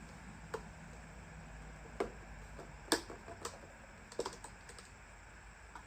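A few scattered light clicks and taps at an uneven pace, the sharpest about three seconds in, with a quick cluster just past four seconds: hands handling the metal parts of a 1940s wringer washer.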